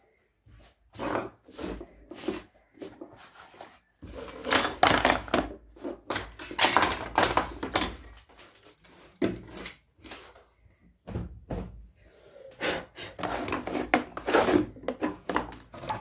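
Objects being handled and set down on a wooden workbench: a run of knocks, scrapes and rattles, busiest from about four to eight seconds in and again near the end.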